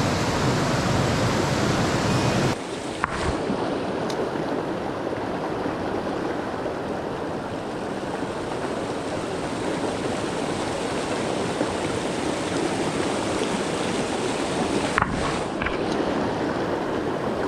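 Mountain stream water rushing, a steady noise. About two and a half seconds in it drops abruptly to a slightly quieter, less deep rush, with a sharp click just after and a couple of faint clicks near the end.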